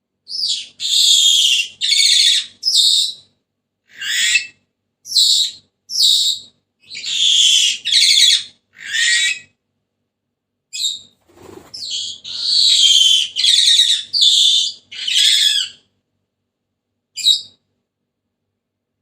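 Senegal parrot giving loud, high-pitched calls in quick succession, in two bouts of several calls each with a short break between, then one last single call near the end.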